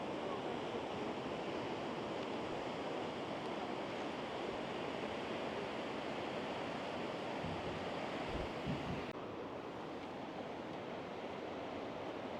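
Sea waves washing onto the beach, a steady rushing, with wind buffeting the microphone in low gusts about eight seconds in. The higher hiss drops abruptly at about nine seconds.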